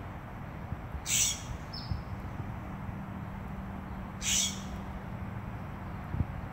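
California scrub-jay bathing in a bird bath: two short bursts of splashing about three seconds apart.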